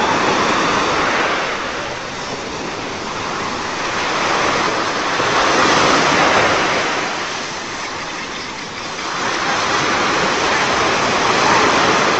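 Ocean surf washing in and breaking on a beach, a steady rushing hiss that swells and fades again about every six seconds.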